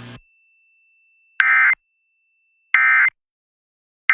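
Emergency Alert System end-of-message code: short, buzzy bursts of digital data tones, each about a third of a second long and about a second and a half apart. Two come through whole and a third is just starting, marking the end of the relayed flash flood warning.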